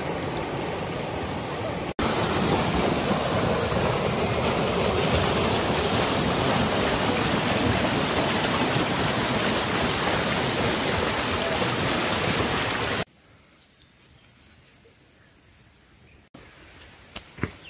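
Fast river water rushing over rocks, a loud steady rush that cuts off suddenly about thirteen seconds in, leaving a much quieter background.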